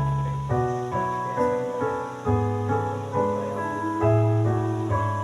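Piano accompaniment playing slow chords between sung lines, a new chord struck about every second and left to ring and fade.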